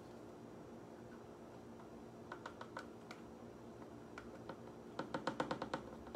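Cornstarch being shaken out of its canister into a measuring cup: a few soft ticks, then a quick run of light clicking near the end.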